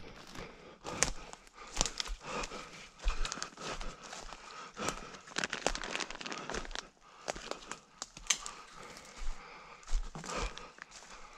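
Irregular crunching and rustling of an orienteer's footsteps and legs pushing through forest undergrowth, twigs and brush.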